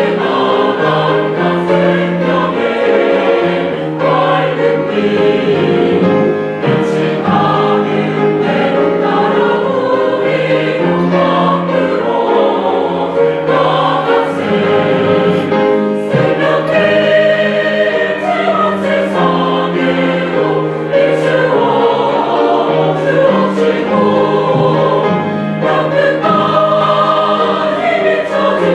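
Church choir singing a sacred anthem in parts, with held notes and many voices together throughout.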